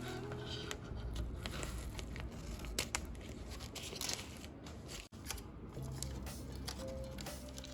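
Close-up handling noise: irregular crinkling, crackling and clicking of material being worked by hand.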